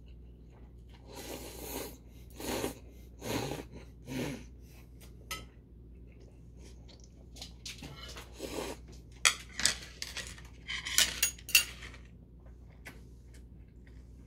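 Thin wheat noodles slurped up in several long sucks, with more slurping and chewing after them. About two-thirds through comes a quick run of sharp clicks.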